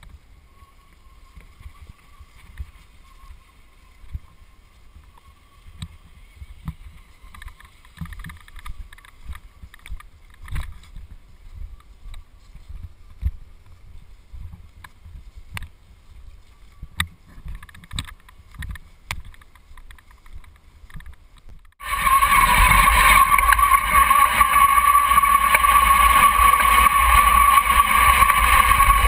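Homemade radio-controlled tracked vehicle driving over grass: a faint, steady whine from its drive with scattered clicks and knocks for the first twenty seconds or so. Then a sudden change to the same drive whine heard loud and close, from a camera mounted on the vehicle, over the rumble and rattle of the tracks.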